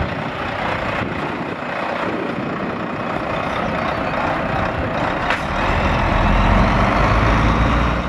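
A Volvo FH 480 truck's diesel engine, a 13-litre straight-six, and tyres as the tractor unit and box trailer drive slowly past, a steady rumble. From about five and a half seconds in, the engine's low note grows stronger and louder as the truck pulls away.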